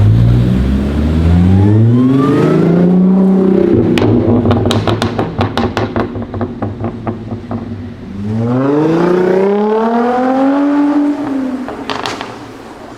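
Supercharged Audi A7 3.0 TFSI V6 with a custom exhaust accelerating hard, the engine note rising over the first three seconds, then a rapid string of exhaust crackles and pops as it comes off the throttle. A second acceleration climbs in pitch from about eight seconds in, then fades away with a few more crackles near the end.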